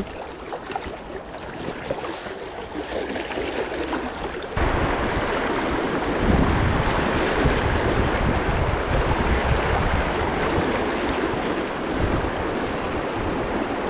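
Fast river water rushing over stones in a riffle, with wind rumbling on the microphone. The rush turns suddenly louder and fuller about four and a half seconds in.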